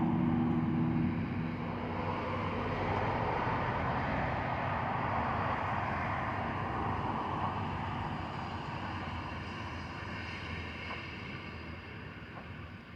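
Distant engine noise: a steady rushing that slowly fades away, with a low hum that stops about a second in.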